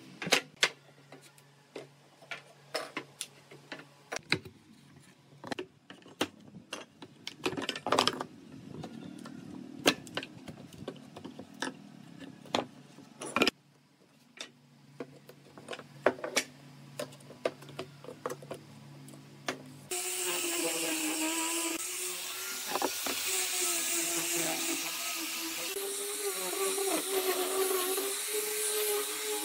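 Scattered knocks and hammer taps on wooden boards, irregular and sharp. About two-thirds of the way in, an angle grinder with a sanding disc starts sanding a wooden board, running steadily with a tone that wavers slightly in pitch.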